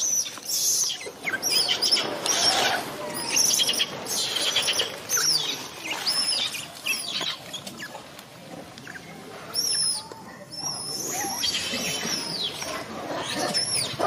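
Baby long-tailed macaque crying, a string of high-pitched arching squeals, some short and some drawn out, easing off briefly a little past the middle.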